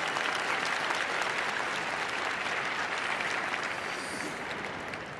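Arena crowd applauding, a dense patter of clapping that dies away over the last second or so.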